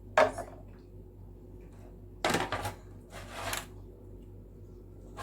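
Kitchenware being handled: a sharp knock of a glass or dish set down, then two short scraping, rustling noises.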